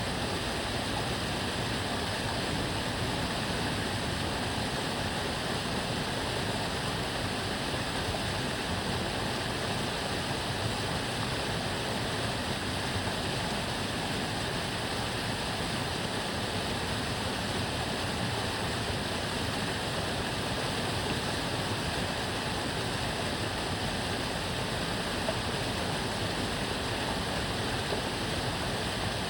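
Water of the Tamagawa Josui canal flowing and babbling in a steady, even rush.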